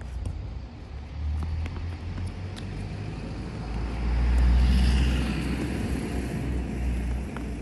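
A road vehicle passing: a low rumble that swells to its loudest about halfway through and then eases, over a few faint tennis-ball strikes from the rally.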